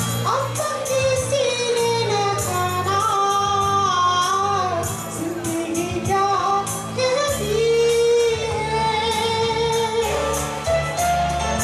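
A man singing a Hindi film song into a handheld microphone over a backing track with a steady beat, holding long, wavering notes.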